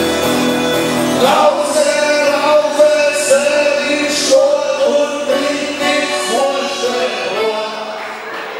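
Live acoustic band of two acoustic guitars and an accordion: a held accordion chord, then a man's voice comes in singing a melody about a second in. The music grows quieter near the end.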